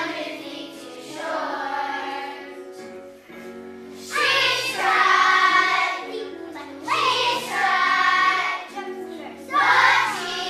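Children's choir singing a song over instrumental accompaniment, in phrases that grow louder about four seconds in.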